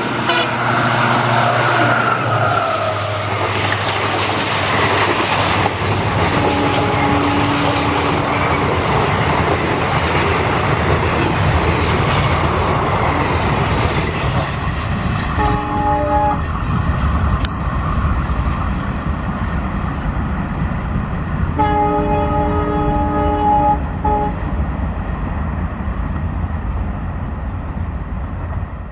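Diesel locomotive-hauled train passing close by, a continuous rumble and rattle of wheels on rail. A train horn falls in pitch in the first few seconds, then sounds again in blasts about seven seconds in, about sixteen seconds in, and a longer one around twenty-two seconds in. The rail noise fades near the end.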